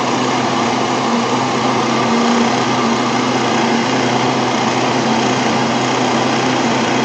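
Electric heat gun running steadily: a rush of blown air with a low hum from its fan motor.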